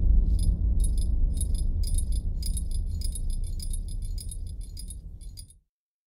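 Cinematic low sub-bass sound effect: a deep rumble with a fast, uneven metallic jingling ticking on top. It fades and cuts off near the end.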